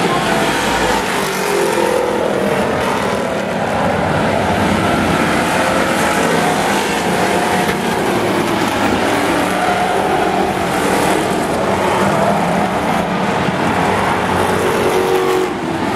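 Several demo race cars running at speed around a short oval track, a loud steady mix of engines whose notes rise and fall as the cars pass.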